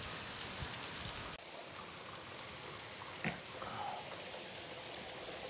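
Rainwater running down a metal rain chain and splashing into a ceramic pot and onto wet mulch, with many sharp drips. About a second and a half in it changes suddenly to the quieter, even hiss of steady rain, with a single sharp knock a little past the middle.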